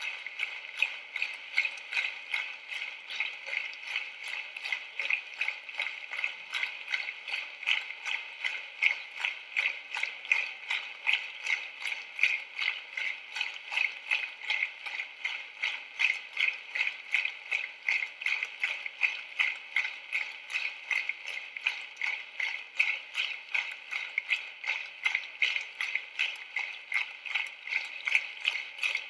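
Many hands clapping in unison, a steady rhythmic beat of about three claps a second.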